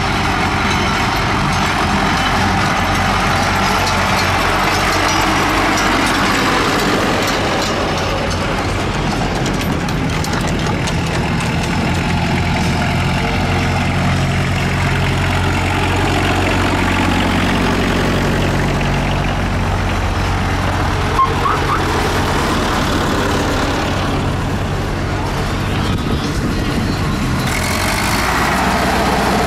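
Tractor engines running steadily as a column of tractors drives past, their pitch shifting gradually as machines come and go, with one brief click about two-thirds of the way through.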